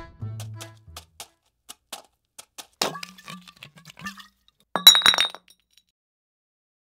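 Background music trails off. Then hard objects clink in scattered sharp strokes, each with a brief ringing. The loudest is a quick cluster of clinks about five seconds in.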